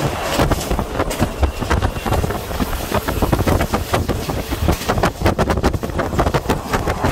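Diesel railcar running along the track, heard from on board: a steady low rumble with dense, irregular clicking and rattling, and wind on the microphone.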